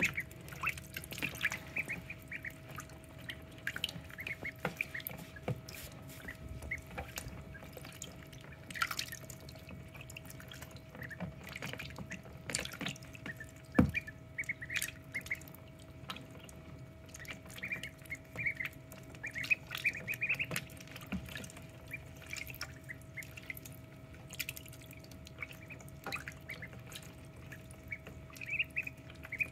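Ducklings peeping in clusters of short, high chirps, with light water splashes and drips as they paddle and dabble in a shallow tray of water. A sharp knock about halfway through is the loudest sound, and a faint steady hum runs underneath.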